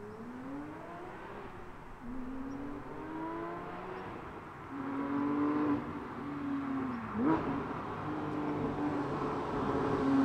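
Porsche 997.1 GT3 RS's Mezger flat-six, its center muffler deleted, pulling hard with the revs rising and stepping between gears. About seven seconds in the revs dip and jump sharply back up. It grows steadily louder as the car approaches.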